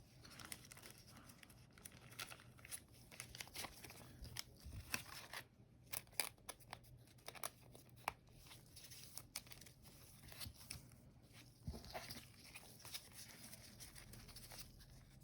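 Soft plastic card sleeves crinkling and rustling as trading cards are slid into them, with many small scattered clicks; faint.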